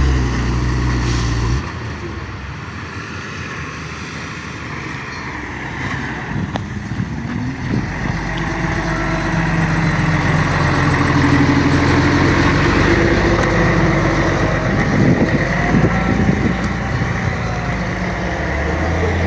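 Engine sounds from radio-controlled model trucks and construction machines, shifting in pitch as the models drive and work. A loud low rumble drops off about a second and a half in.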